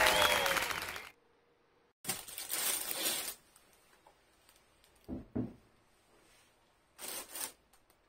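An applause sound effect fades out in the first second. Then faint kitchen handling noises, with two soft knocks about five seconds in, a carrot being set down on a stainless steel sink drainboard.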